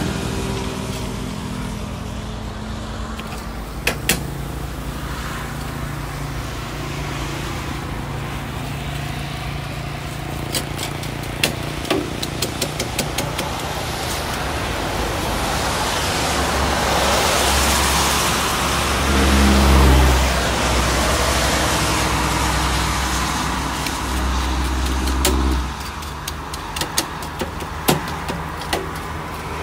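A motor vehicle engine running close by, growing louder and then cutting off abruptly about 26 seconds in. Metal tongs and a knife click and scrape on the charcoal grill's grate now and then, most often near the end.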